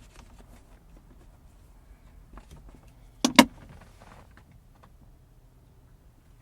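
Light handling of plastic parts, with two sharp clacks in quick succession about three seconds in: the van's plastic console compartment door and its new latch being fitted back together.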